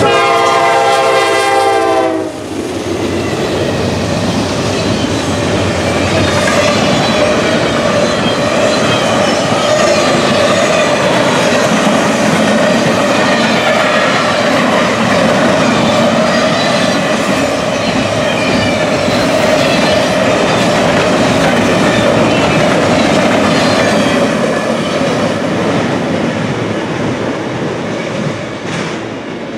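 Horn of a Norfolk Southern GE Dash 9-40CW diesel locomotive sounding and cutting off about two seconds in. Then the double-stack intermodal container cars roll past with a loud, steady rumble of steel wheels on the rails, which eases off near the end as the train goes by.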